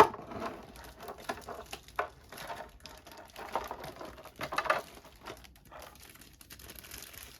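Tape being cut and the clear plastic blister tray of a figure's packaging being handled: irregular clicks, scrapes and crinkles, with a sharp click at the very start.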